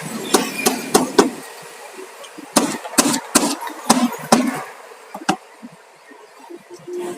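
Hammer blows on wooden concrete formwork boards: a quick run of strikes, a short pause, then another run of about six strikes and one last blow.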